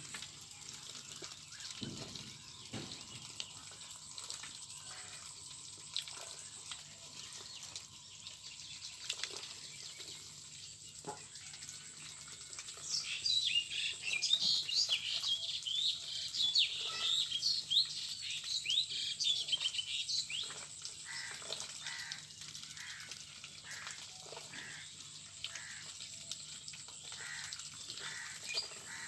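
A flock of ducks calling: scattered short calls, then a dense stretch of high chirping peeps in the middle lasting about seven seconds, over a steady faint high whine.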